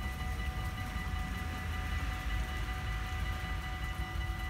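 Dutch automatic level-crossing warning bells ringing steadily over a low rumble.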